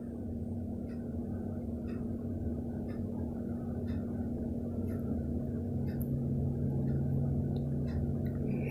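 A steady low hum with a held tone, joined by a second lower tone about six seconds in. Over it come faint, irregular light scrapes of a vegetable peeler stripping ridge gourd skin.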